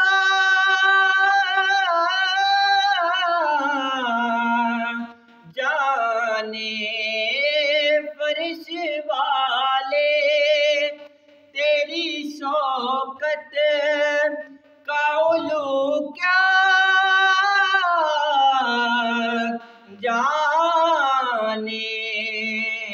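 A young man's solo voice singing an Urdu naat without accompaniment. He holds long, ornamented notes that waver in pitch, in several long phrases with brief pauses for breath between them.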